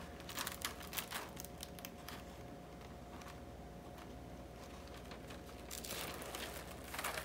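Crinkling and rustling of a rhinestone transfer sheet, hotfix tape on its paper backing, being lifted and handled, with clusters of small crackles in the first second or so and again near the end.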